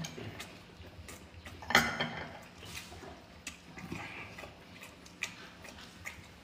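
Scattered small clicks and taps of thin picks against sea-snail shells and a plate as the meat is picked out and eaten, with a louder click about two seconds in.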